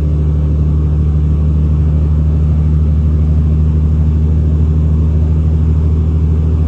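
Semi-truck's diesel engine droning steadily at highway cruising speed, heard from inside the cab, with tyre and road noise.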